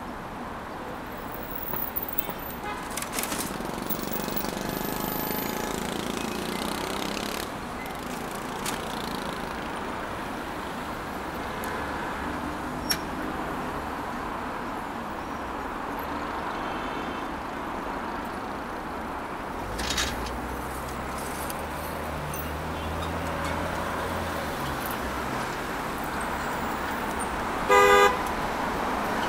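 Steady city road traffic noise. A heavy vehicle's engine rumbles by around two-thirds of the way through, and a car horn honks once, briefly and loudly, near the end.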